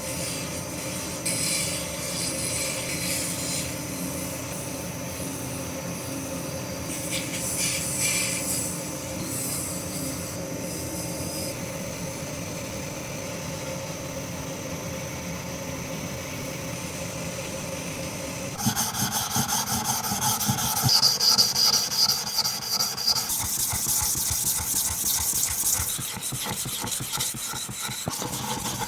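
A rusted plane iron being sharpened: the blade rubs and scrapes on an abrasive. A steady hum runs under the first part. About two-thirds of the way through the hum stops and louder, quick, rhythmic scraping strokes take over.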